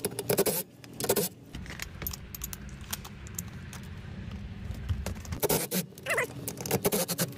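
Hand tools and fasteners clinking against metal: a run of sharp clicks and rattles, busiest near the start and again in the last two seconds, over a steady low hum.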